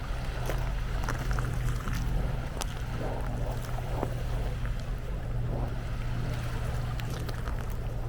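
Wind rumbling on the camera's microphone over the wash of small waves on the beach, with scattered light clicks.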